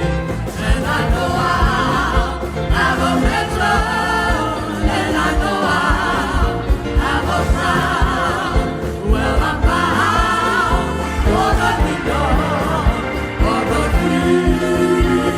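Gospel song sung with vibrato over instrumental accompaniment, with sustained low notes and a steady beat.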